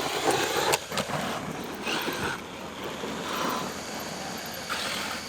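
Radio-controlled cars driving on dirt: repeated bursts of motor and tyre noise as they throttle up, with a sharp knock under a second in.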